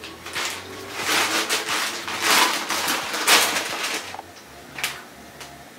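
Plastic bag of sweet peas crinkling and rustling as more peas are shaken out of it into a pan, for about four seconds, then one short knock.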